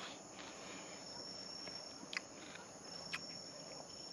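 Steady night chorus of crickets, a continuous high trill, with two sharp clicks about a second apart in the second half.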